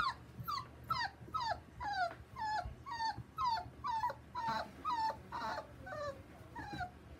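Border Collie puppy whining in a steady series of short, high calls, about two a second, each falling in pitch.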